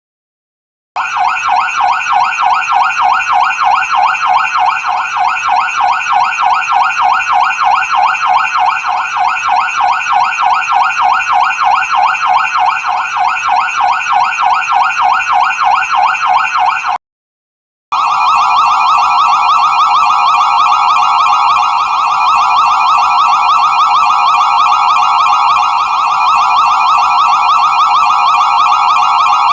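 Fire truck electronic siren in a fast yelp, its pitch sweeping up and down several times a second, starting about a second in. It cuts off about 17 seconds in, and after a second's silence a second siren pattern starts, warbling faster within a narrower pitch range.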